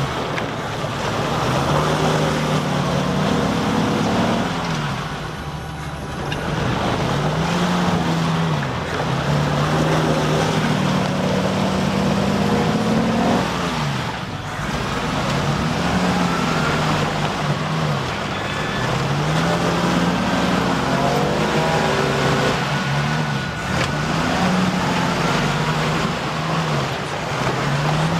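Jeep CJ Renegade's engine revving up and dropping back over and over, its pitch rising and falling every couple of seconds, as the Jeep churns through deep mud.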